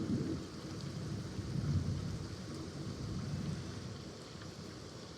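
Heavy rain pouring down, with a low rumble of thunder that swells about two seconds in and dies away near the end.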